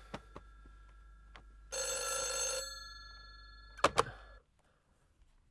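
Old black desk telephone's bell ringing once, a loud ring lasting about a second, beginning a little under two seconds in. About four seconds in come two sharp clacks as the handset is grabbed off its cradle, and the faint steady hum under it all stops just after.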